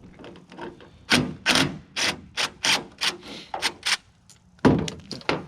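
A series of irregular sharp knocks and clanks as a tailgate support cable and its Torx bolt are worked loose.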